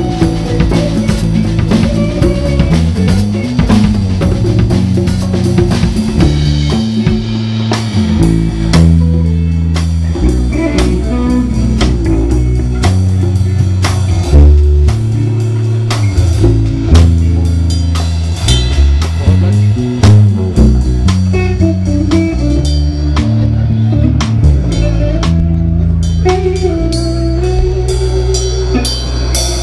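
A rock band playing live: drum kit with steady snare and cymbal hits, a bass guitar carrying a moving bass line, and electric guitar.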